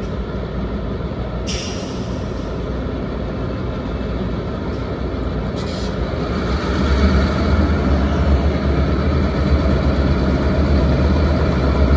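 Diesel locomotives approaching slowly, their deep engine rumble growing louder from about six or seven seconds in. Two short bursts of air hiss come early and about six seconds in.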